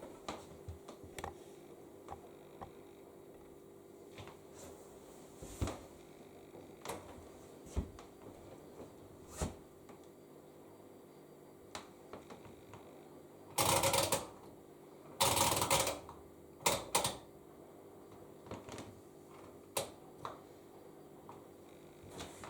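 Scattered clicks and knocks from handling washing machine controls while programmes are selected, with two louder noisy bursts of about a second each a little past halfway, over a faint steady hum.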